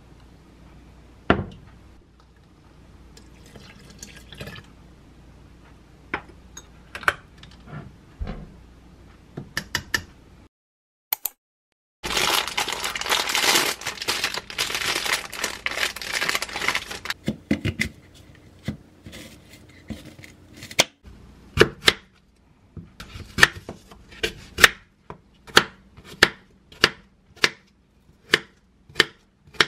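A plastic jar of stewed peaches is handled, with a few clicks and knocks of its lid. About halfway, a plastic bag of apples crinkles loudly for several seconds. Near the end, a knife slices an apple on a wooden cutting board in steady strokes, about two a second.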